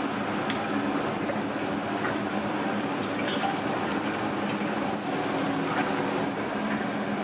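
Aquarium water churning and bubbling, with the steady hum of the tank's pump underneath.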